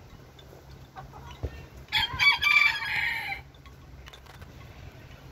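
A rooster crowing once, about two seconds in, lasting about a second and a half.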